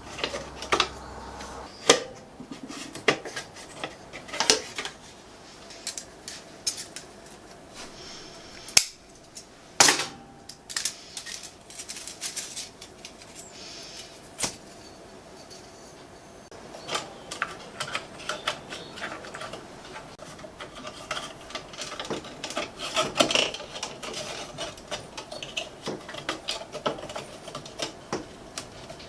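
Metal parts clinking and knocking as they are handled: a string of irregular sharp clicks and clanks, sparser in the middle and busier near the end.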